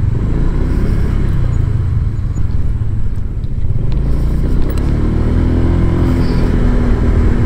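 Honda Click scooter's single-cylinder engine running as it is ridden along a street, with a steady low rumble of road and wind noise. From about halfway through, the engine's pitched hum stands out more clearly.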